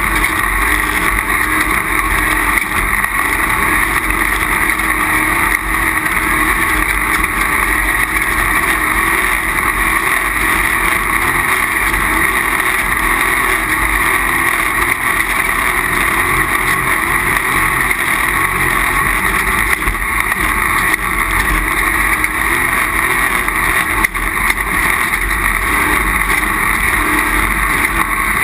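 Off-road race vehicle driving at speed, its engine running steadily under a constant, loud rush of noise.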